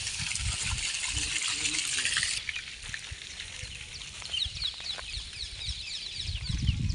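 Water gushing from an irrigation pipe onto the soil, a steady hiss that cuts off suddenly about two and a half seconds in. After it, many birds chirping in quick, falling calls.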